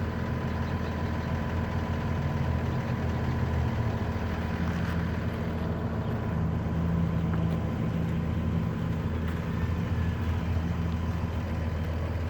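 Ford Explorer's engine running steadily, a low even hum with a faint higher tone over it.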